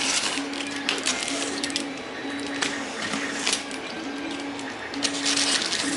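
Cardboard box and packaging being handled and opened, with irregular rustling and scraping, loudest near the start and again about five seconds in. A low note repeats evenly underneath, about once a second, as from background music.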